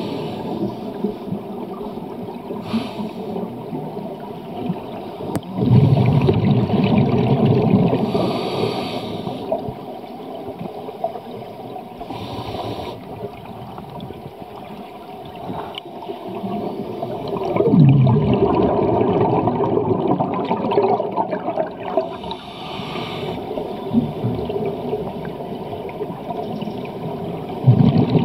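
Scuba diver breathing through a regulator underwater: slow breaths, each a short hiss as air is drawn in and a longer, louder bubbling as the exhaled air escapes, a few times over.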